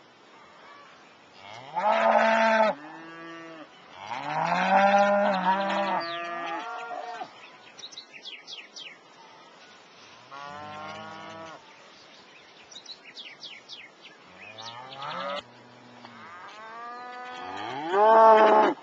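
Cattle mooing: about five long, low calls that rise in pitch at the start, some overlapping, the last and loudest near the end.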